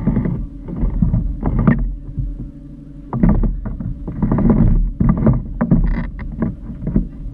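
Small boat running on water: a steady low motor hum with louder, noisy surges coming and going.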